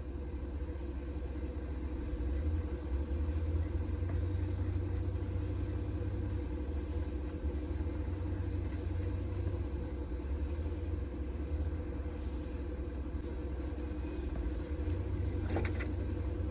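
Cat 305 mini excavator's diesel engine running steadily at a constant speed, a low rumble. Two short sharp knocks come near the end.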